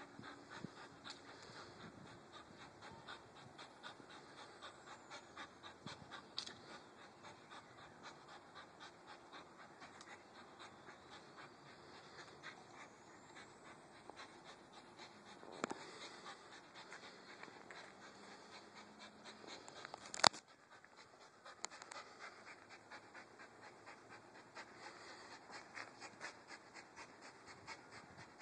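Young pit bull panting hard in quick, even breaths while gripping a springpole rope toy in its jaws. A few sharp clicks break in, the loudest about twenty seconds in.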